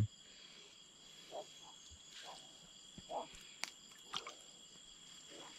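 Faint steady insect chorus, several high tones held without a break, with a few soft short calls and light clicks scattered through.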